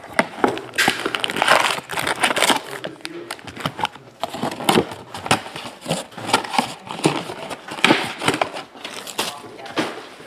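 Foil trading-card packs and plastic shrink-wrap crinkling and rustling as the packs are handled and pulled from a cardboard box, in a run of irregular sharp crackles.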